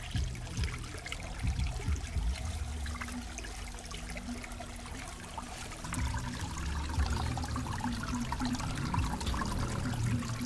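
Shallow stream water trickling over rocks, with small splashes and knocks as hands grope among the stones underwater, a little louder about six seconds in.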